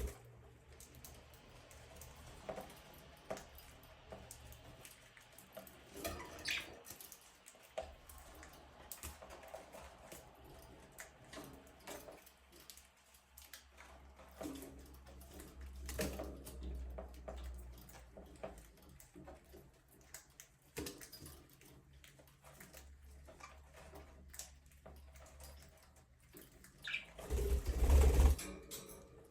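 Budgerigars chirping softly now and then, among scattered small clicks and taps. A low rumbling thump shortly before the end is the loudest sound.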